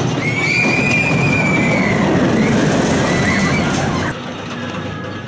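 Ultra Twister roller coaster train running on its track, a loud rumble with a high drawn-out squeal near the start and a shorter squeal after about three seconds.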